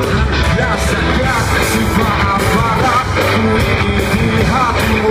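Live rock band playing loud: drums with cymbals, electric guitar and a singing voice.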